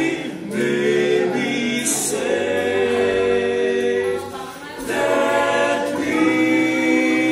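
A small group of male voices singing a cappella in close harmony, holding long chords. They break off briefly about four and a half seconds in, then come back in on a new chord.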